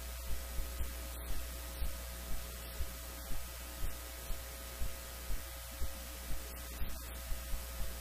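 Steady electrical hum and hiss in the recording, with faint low ticks a few times a second; no voices.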